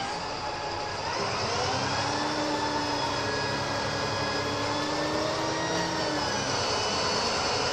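DAF SB200 Wright Commander bus's diesel engine and driveline working under power, whiny and shouty. The pitch dips, then climbs about a second in and holds steady, with a high whine over the engine note.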